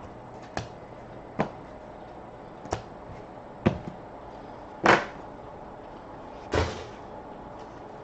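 Trading cards being handled during a hockey card box break: about six short taps and clacks at uneven intervals, the loudest about five seconds in.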